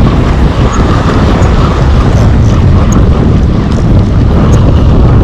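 Strong wind buffeting the microphone: a loud, steady rumble that starts abruptly and masks everything else.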